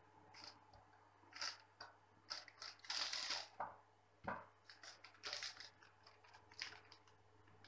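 Plastic zipper bag crinkling in short, scattered bursts as tomato slices are tipped into it and the bag is handled. The longest, loudest crinkle comes about three seconds in, followed by a soft knock.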